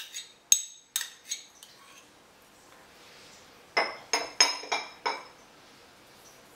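Metal spoon clinking against a small ceramic dish as minced garlic is scraped out of it: a few sharp clinks in the first second or so, then a quick run of about five taps around four to five seconds in.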